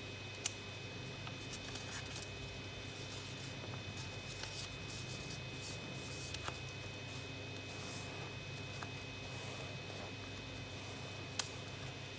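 Origami paper rustling and crinkling faintly as hands fold and crease it, with two sharp ticks, one about half a second in and one near the end, over a steady low hum.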